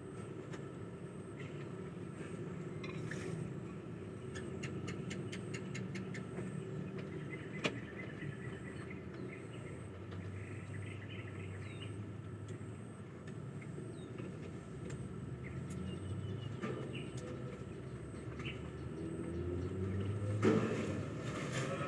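Steady outdoor background noise with a low hum and faint bird chirps. A run of quick clicks comes about five to seven seconds in, and a louder burst of noise near the end.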